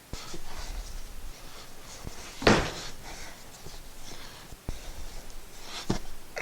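A lawn tractor wheel being turned and handled to spread Slime sealant inside its tire: a few knocks and thumps, the loudest about two and a half seconds in, with light rustling between.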